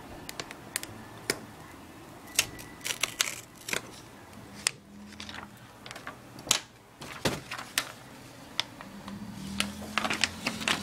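Clear plastic protective film being handled and peeled off a new laptop LCD panel: irregular crinkling and sharp crackling clicks, thickest about two to four seconds in and again near the end.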